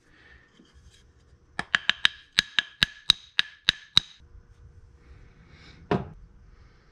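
A wooden stick rapping a plaster core box about a dozen times in quick succession, four to five knocks a second, to loosen the green-sand core inside, followed by a single knock about two seconds later.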